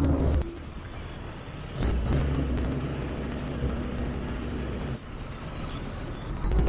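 Diesel engines running: a John Deere loader tractor's engine loud at the start and fading as it moves off, then a tandem-axle dump truck's diesel engine coming up louder about two seconds in as it works with its box tipped up to unload silage.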